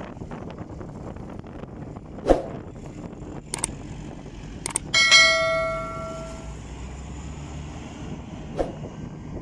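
Steady engine running of asphalt-paving machinery, with a few sharp knocks and one loud ringing metal clang about five seconds in that dies away over a second or so.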